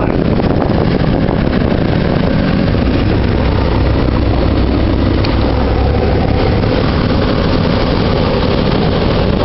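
Steady, loud low engine rumble of heavy machinery, swelling a little in the middle.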